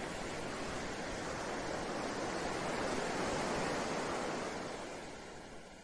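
Ocean surf washing in a steady hiss, swelling about three seconds in and then fading away near the end.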